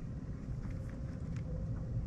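Steady low rumble of wind buffeting the microphone over open water, with a faint steady hum underneath.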